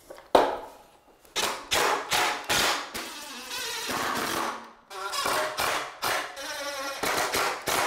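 Cordless driver sending pocket-hole screws into pine boards in a string of short bursts, with one longer run about three seconds in.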